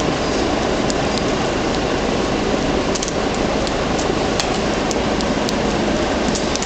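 Steady, loud mechanical background noise with a low hum, and a few faint taps now and then.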